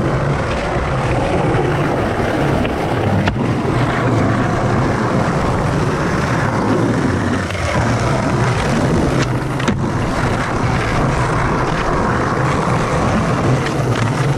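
Skateboard wheels rolling on pavement: a steady loud rumble and hiss, with two sharp clacks a few seconds apart.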